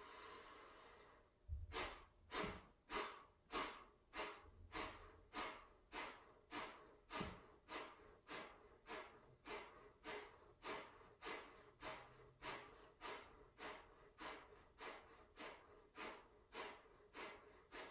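A woman doing Kapalabhati (breath of fire): one deep inhale, then, from about a second and a half in, a rapid, even run of short, forceful exhales through the nose, about two a second, each pumped out by the belly.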